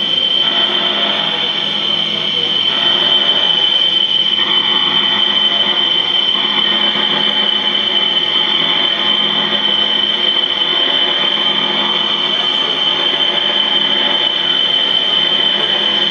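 Live electronic noise-drone music played from a tabletop rig of effects pedals and electronics: a dense, steady wall of noise with a piercing high tone over it and no beat.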